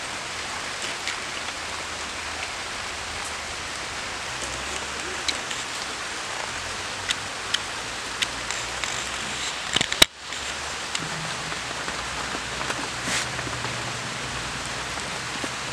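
Steady hiss of background noise with scattered light ticks and snaps as arum flower stalks are peeled and trimmed against a curved blade, and one sharp click about ten seconds in.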